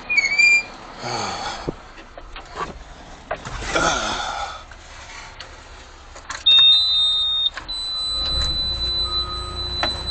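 Scuffs and knocks of someone climbing into an excavator cab, then a loud electronic beep lasting about a second past the middle. Near the end the excavator's diesel engine comes up to a steady run, with a steady high-pitched tone over it.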